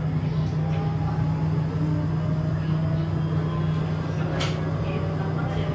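A tram running steadily, heard from inside the passenger cabin as a constant low hum with running noise, and one sharp click about four and a half seconds in.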